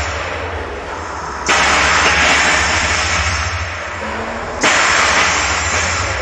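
Featherweight combat robots fighting in the arena: repeated bursts of whooshing, jet-like noise, each starting suddenly and fading over about three seconds, over a steady low hum. Brief faint motor whines come through.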